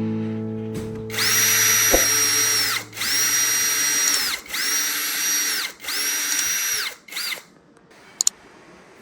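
Electric drill run in four short bursts of just over a second each, its high whine spinning up and winding down with each trigger pull, and then a brief final blip.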